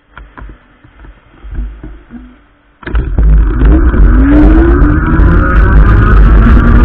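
Electric bike with a 750 W motor pulling away from a stop. Faint knocks come first; about three seconds in, loud wind and road rumble on the bike-mounted camera set in suddenly, with the motor's whine rising in pitch as the bike picks up speed.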